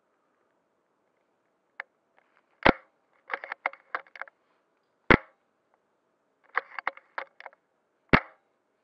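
Airsoft gun fired three times, a little over two seconds apart. The first two shots are each followed about half a second later by a quick run of small mechanical clicks.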